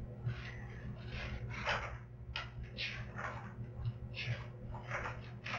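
A person sniffling and breathing hard in short noisy sniffs, roughly two a second, over a steady low hum in the room recording.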